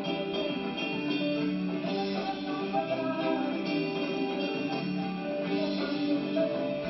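Live band music, guitars to the fore, in a stretch where the held instrumental notes carry on without singing.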